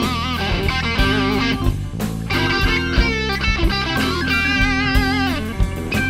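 Rock band playing live, instrumental: an electric guitar plays a lead line of bending, wavering notes over steady drum hits and low bass notes.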